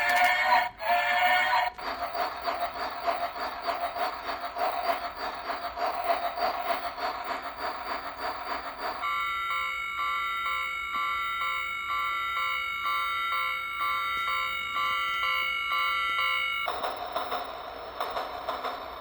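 Vintage spinning top spinning, with a fast rhythmic chugging like a train. About halfway through it changes to a steady several-note whistling hum for several seconds, then goes back to chugging.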